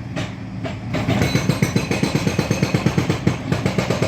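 Heavy demolition machinery running. About a second in, a loud, rapid, steady pounding starts, about ten strokes a second.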